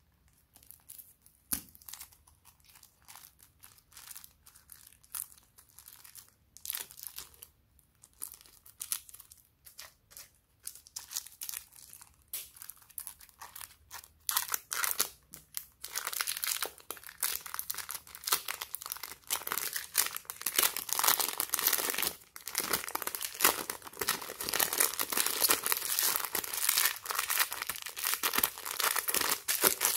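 Glossy slime being kneaded and stretched by hand: a run of irregular wet crackles and small pops, sparse at first, then much denser and louder from about halfway through.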